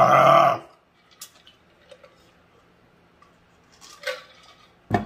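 Mouth sounds of a person eating sushi: a short, loud, low vocal sound at the very start, then faint chewing with scattered small mouth clicks.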